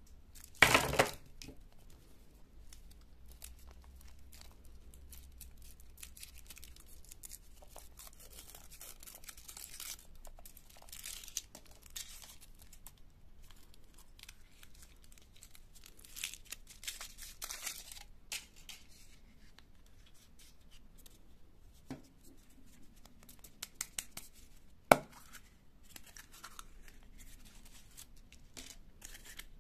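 Hands crinkling and tearing candy wrappers: the thin foil peeled off a Kinder Surprise chocolate egg, and lollipop wrappers torn open. About a second in comes a loud clatter, a bunch of wrapped Chupa Chups lollipops dropping onto the table, and near the end one sharp tap.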